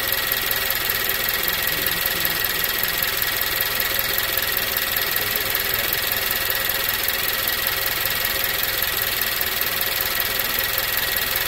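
Nissan Juke Nismo RS's turbocharged 1.6-litre four-cylinder engine idling steadily, heard up close in the engine bay, with a steady high whine over the running noise.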